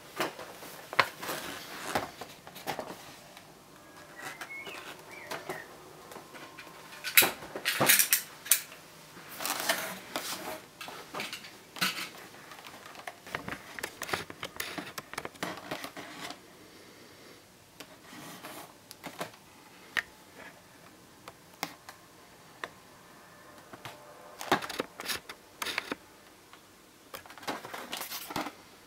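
Hands opening and handling the cardboard and clear plastic packaging of a boxed model airliner: scattered clicks, taps and rustles, busiest about a quarter of the way in and again near the end.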